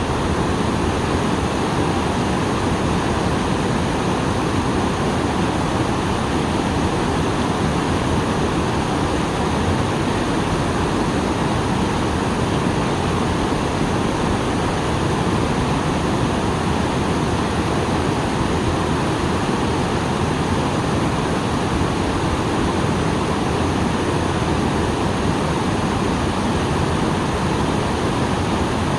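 Small waterfall pouring steadily, a constant even rush of falling water swollen by recent rain.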